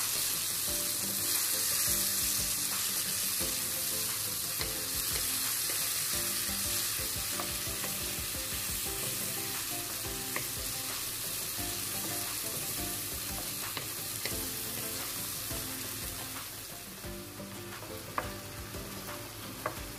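Diced tomato and onion sautéing in hot oil in a frying pan, a steady sizzle, stirred with a wooden spatula that knocks lightly against the pan now and then. The sizzle eases a little near the end.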